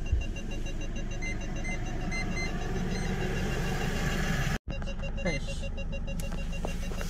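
Car engine idling with a steady run of short electronic beeps that repeat over the hum.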